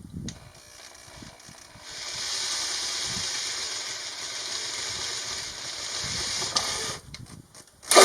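Electric drill boring a hole through the van's sheet-metal floor, running steadily and getting louder about two seconds in as it bites, then stopping about a second before the end; a second hole is started right at the end.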